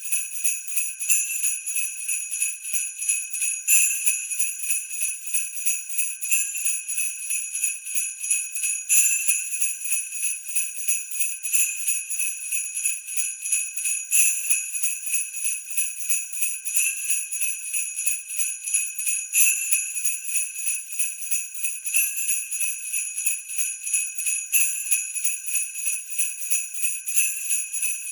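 Sleigh bells shaken in a steady rhythm: a bright, continuous jingling with a stronger shake every few seconds.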